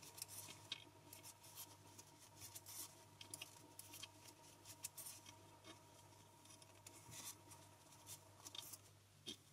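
Faint, irregular clicks and light scrapes of knitting needles working stitches, over a low steady hum.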